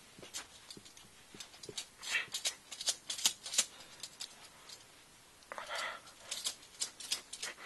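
Steel handcuffs clinking and rattling as cuffed wrists strain and twist behind the back, in scattered sharp clicks, most of them about two to three and a half seconds in and again near the end. Twice a short breathy effort sound comes with them.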